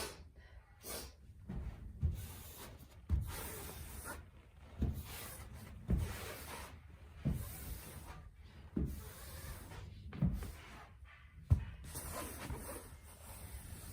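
A woman sneezing in a rapid run, about nine sneezes roughly one every second and a half, the loudest near the end; the fit is brought on by house dust.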